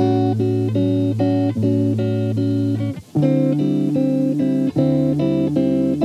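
Background music: an instrumental passage of repeated plucked guitar chords over a held bass line, changing chord about halfway through.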